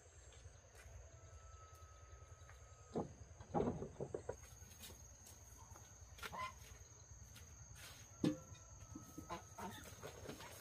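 Chickens clucking in a few short bursts, about three seconds in, again around six and eight seconds, over a steady high insect drone.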